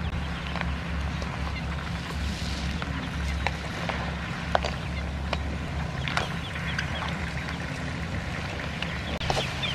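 Crab and fish simmering in a steel wok over a wood fire, with scattered sharp clicks as a metal spatula knocks and scrapes against the pan, over a steady low hum.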